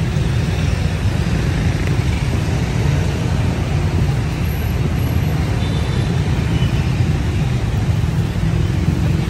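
Steady low rumble of street traffic, even throughout with no single vehicle standing out.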